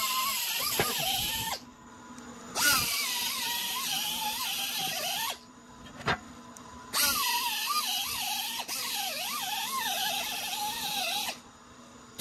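Pneumatic die grinder with an abrasive pad cleaning up drilled steel plate, run in three bursts: a hiss of air over a whine that wavers in pitch as it works. There is a sharp click in the pause between the second and third bursts.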